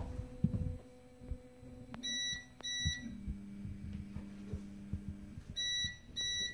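EPAX X1 resin printer's Z-axis stepper motor humming steadily as it drives the build plate during homing, its pitch dropping about three seconds in. The printer beeps twice in quick succession about two seconds in, and again twice near the end.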